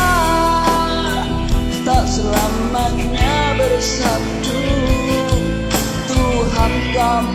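Pop-rock karaoke backing track playing, with drums and bass under a wavering lead melody line that glides between notes.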